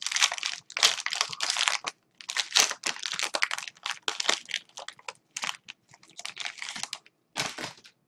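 Foil wrapper of a trading card pack crinkling and tearing as it is ripped open by hand, in a run of short crackling bursts with brief pauses between.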